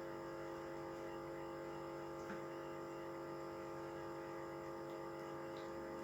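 Soft background music holding a steady sustained chord, with two faint clicks.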